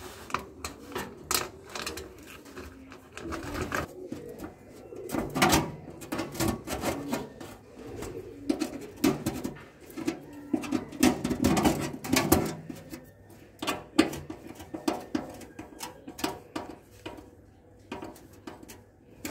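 Pigeons cooing in a steady, pulsing run, with scattered clicks and knocks from hands handling a stainless steel sink, louder about five seconds in and again about eleven seconds in.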